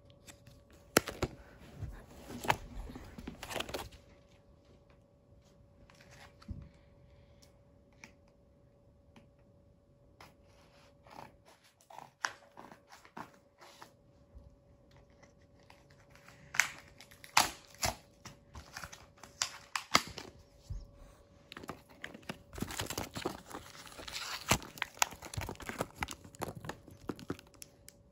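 Hands handling a plastic Nerf blaster and its magazine: scattered sharp plastic clicks and bursts of rustling. It goes mostly quiet for several seconds in the middle, then the clicking and rustling pick up again and grow busier toward the end.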